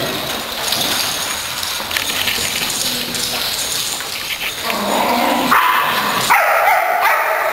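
Dogs playing rough, barking and yipping, with a run of higher-pitched yips and whines in the last couple of seconds.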